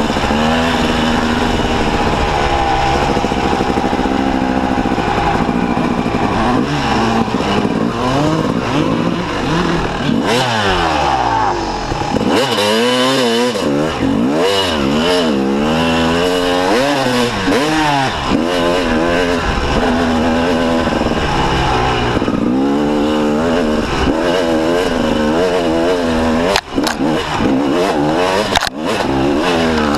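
1998 Kawasaki KX250 two-stroke dirt bike with V-Force reeds and an FMF exhaust, ridden hard: the engine's pitch climbs and falls again and again as the throttle is opened and shut through the gears, with two brief drops in sound near the end.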